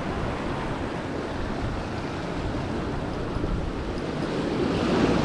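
Sea waves washing and breaking against jetty boulders, a steady surf wash, with wind buffeting the microphone; the wash grows a little louder near the end.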